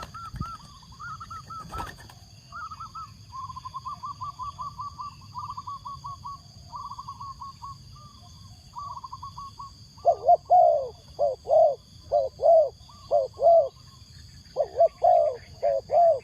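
Spotted dove cooing: loud, deep, repeated coos in two bouts from about ten seconds in. Before that, rapid runs of short, higher chirping notes from another bird, with a steady faint high whine throughout.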